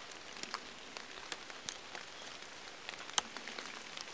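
A knife cutting small dry twigs off a dry spruce branch: scattered faint, crisp clicks and snaps over a low hiss, the sharpest about three seconds in.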